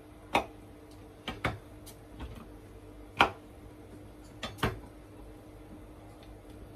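Kitchen utensils and dishes clinking and knocking as food is prepared: about seven sharp, irregular hits, some in quick pairs, the loudest near the middle, over a faint steady hum.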